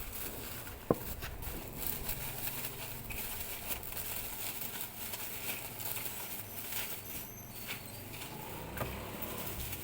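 Packaging being handled and rustled by hand as a parcel is opened, with small scratching and crinkling noises and a sharp click about a second in.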